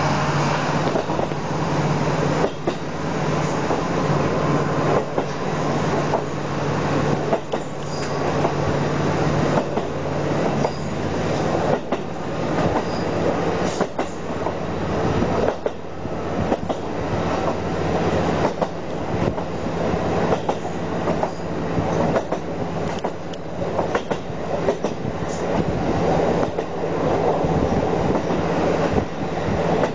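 Inside a diesel railcar, likely a KiHa 40, running steadily along the line. A constant diesel engine drone sits under the rattle of the carriage, with the wheels clacking irregularly over rail joints.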